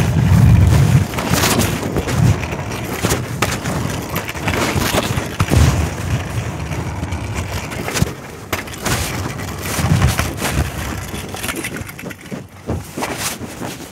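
Phone microphone rubbing and knocking inside a pocket: loud, uneven fabric rustling and scraping with scattered clicks and several heavy low thumps.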